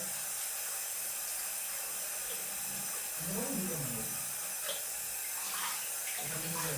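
Water running steadily from a tap into a sink while a face mask is being rinsed off, with a brief voice sound about halfway through.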